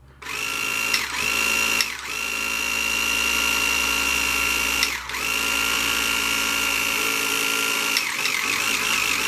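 Small electric motor of a Carrera Digital 1/24 slot car running with a steady high whine, cut off briefly a few times as the throttle is let off and reapplied, and wavering in pitch near the end.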